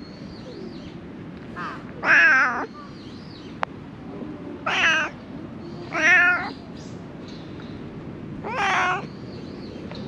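A cat meowing four times, each call about half a second long with a wavering pitch.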